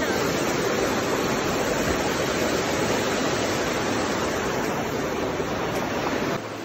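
Water rushing steadily as it cascades over boulders in a small waterfall. It drops off sharply near the end.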